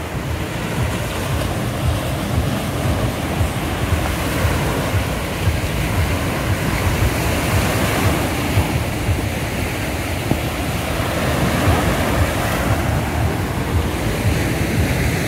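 Sea surf washing onto a sandy, rocky shore, a steady rush of breaking waves, with wind buffeting the microphone in a low rumble.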